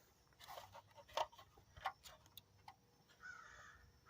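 Faint, light plastic clicks, about five over two seconds, from a side marker bulb socket being twisted and pulled out of its lens assembly.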